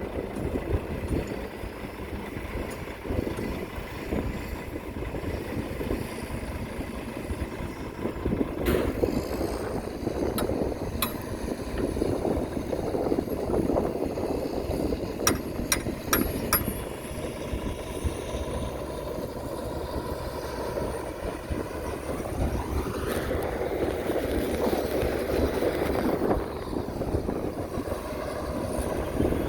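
Heavy diesel construction machinery running steadily. A few sharp metallic clanks come about a third of the way in, and near the end the engine's pitch rises and falls.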